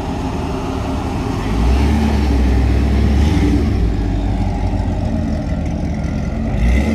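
Car engine running nearby with a deep low rumble that gets louder about a second and a half in.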